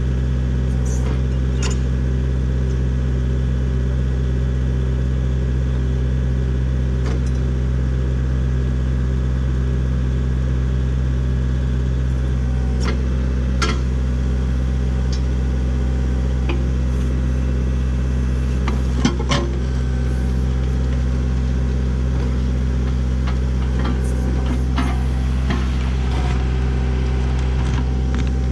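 A machine engine runs steadily at a constant speed, with a few sharp knocks, the loudest pair about two-thirds of the way through.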